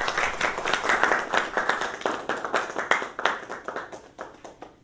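A small group of people applauding with hand claps, the clapping thinning out and dying away near the end.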